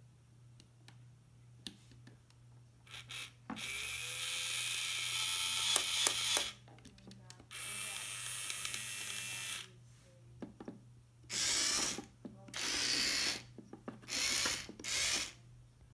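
Rokenbok radio-controlled toy bulldozer driven in bursts: its small electric motor and plastic gearbox whirring and rattling, stopping and starting. A long run of about three seconds and another of about two are followed by four short bursts near the end.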